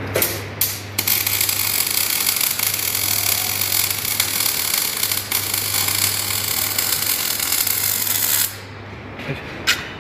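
MIG welding arc on a steel excavator boom, crackling steadily. A short first burst comes about half a second in, then a long run of about seven seconds that cuts off sharply near the end. A steady low hum lies under it.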